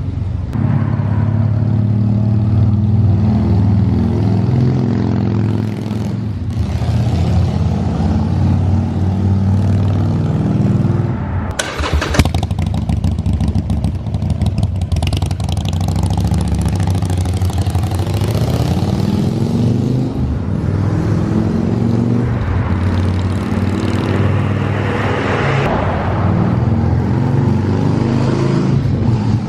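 Harley-Davidson Sportster 1200's air-cooled V-twin running through aftermarket slip-on mufflers, its pitch rising and falling several times as it is revved. A brief sharp clatter about twelve seconds in.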